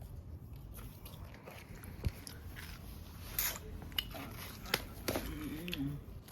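Someone biting into and chewing a toasted grilled cheese sandwich close to the microphone, with a few short, sharp crunches from the toasted bread.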